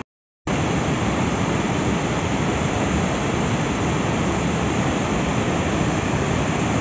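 Waterfall and whitewater rapids rushing over boulders: a loud, steady noise of falling water. It starts after about half a second of silence.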